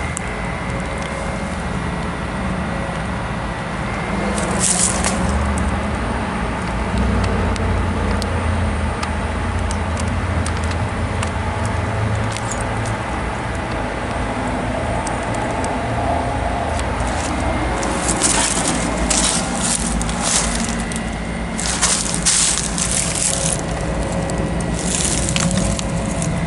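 Residential heat pump outdoor unit running: a steady low hum of compressor and condenser fan with a faint steady whine over it. Short bursts of hiss come and go, a few times in the second half.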